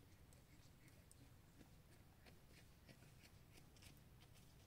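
Near silence: faint forest ambience with a few scattered soft ticks.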